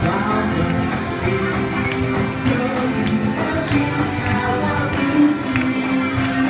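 A small live band playing a song: acoustic guitar strumming under sung vocals with long held notes.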